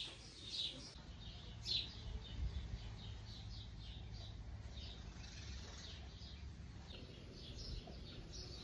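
Small birds chirping in short, high, repeated notes, over a faint low rumble.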